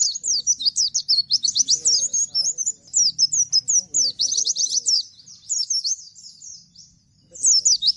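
A Bustomi-type white-eye (pleci) singing its fast 'nembak' song, a rapid rattling run of high, quickly falling notes. The run is dense for about five seconds and then thins out. It breaks off briefly near the end and starts again.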